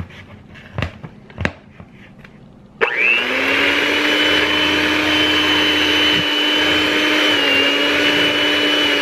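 Electric hand mixer switched on about three seconds in and running steadily with a level motor whine, its beaters whisking egg and cream cheese batter in a plastic bowl. Two short knocks come before it starts.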